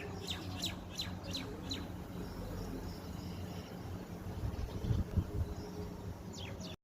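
Small bird chirping: a quick run of short falling chirps in the first two seconds and two more near the end, over a steady low hum, with a couple of low thumps about five seconds in.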